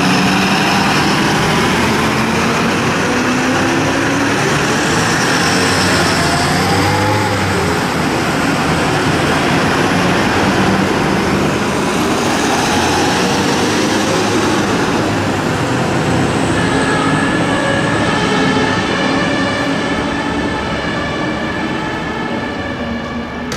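Fire engines pulling out on an emergency run: heavy vehicle engines and sirens sounding, fading away near the end.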